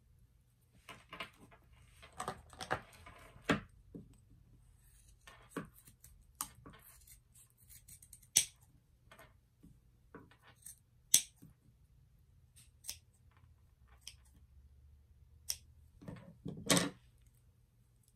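Scissors snipping the ends of a cotton-cord tassel: a handful of sharp, separate snips among soft rustling of the cord being handled, with a louder knock near the end.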